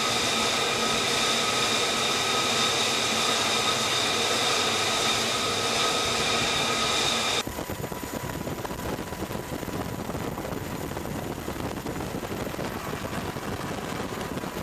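Steady high whine of jet engines running on an aircraft carrier flight deck, several tones held over a rushing noise. About seven seconds in it cuts abruptly to a quieter, rougher rumble of aircraft noise.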